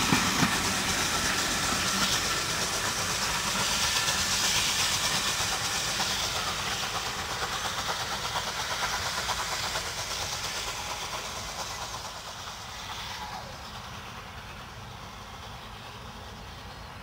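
Steam locomotive working a passenger train away, its exhaust and the running noise of the coaches fading steadily over the first fourteen seconds or so, then staying faint.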